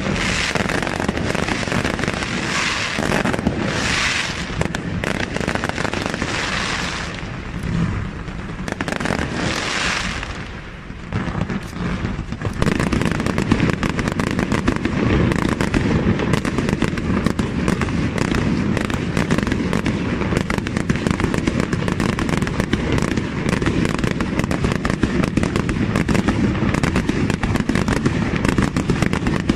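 Aerial fireworks shells bursting overhead, with crackling stars, through the first ten seconds or so. After a brief lull about eleven seconds in, a louder, dense barrage of rapid bangs follows without a break.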